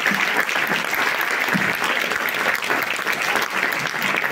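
Audience applauding: many hands clapping together in a steady, sustained round.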